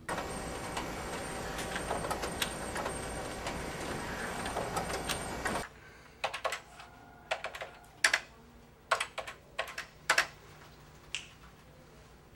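A loud, dense rushing noise that cuts off suddenly after about five and a half seconds, followed by typing on a computer keyboard in scattered, irregular clicks.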